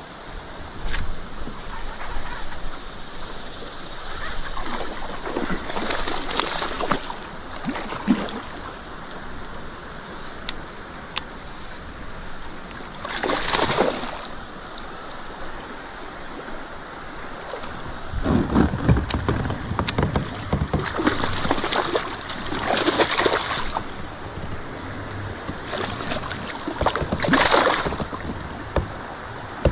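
A hooked smallmouth bass thrashing and splashing at the surface beside a kayak, in about five bursts of splashing, the loudest near the end, over a steady bed of water noise.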